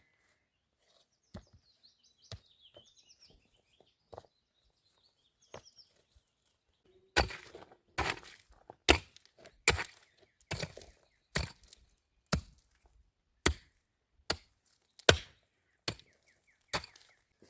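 Wood being chopped: sharp, loud strikes about once a second that begin about seven seconds in, likely an axe or hatchet biting into wood. Before that there are only a few light knocks and small birds chirping.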